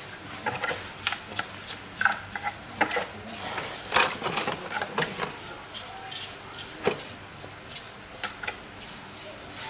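Irregular clicks and light knocks of hand work with tools, unevenly spaced, a few a second.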